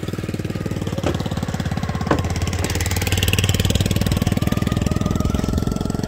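Small motorcycle-type engine running steadily close by, with a fast, even firing pulse. Two short clicks sound about one and two seconds in.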